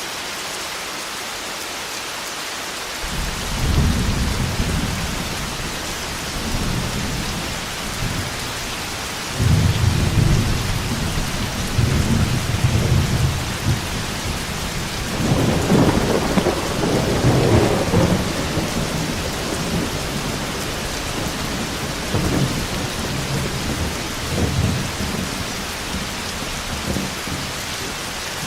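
Steady heavy rain with rolling thunder: low rumbles begin a few seconds in and keep coming, the loudest one peaking about halfway through.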